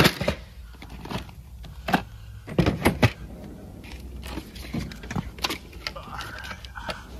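Metal tools clinking and knocking against each other and the drawer as they are packed back into a tool box drawer, in scattered separate knocks.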